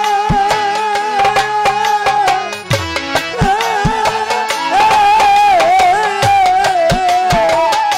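Live Bengali baul folk music: a harmonium holds a steady chord while a hand drum plays deep strokes that bend down in pitch. From about halfway a man sings a long, wavering line over it.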